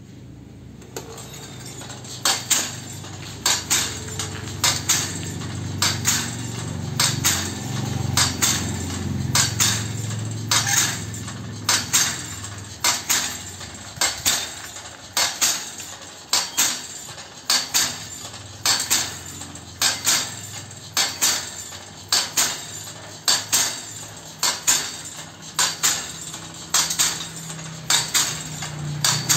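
Home-built rice transplanter prototype running: its steel mechanism clanks rhythmically about once a second, sometimes as a double knock, over the low hum of its drive motor. The clanking starts about two seconds in.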